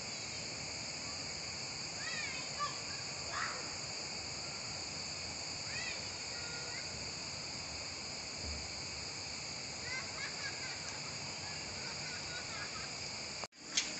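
A steady, high drone of insects runs throughout, with small birds giving short chirps now and then. Near the end the sound cuts out abruptly for a moment, then comes back with a sharp click.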